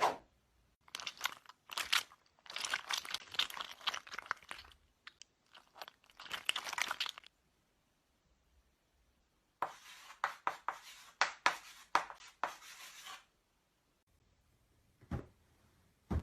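Foley crunching and crackling, like material being crumpled or torn, in two runs with sharp clicks among them and a quiet pause between.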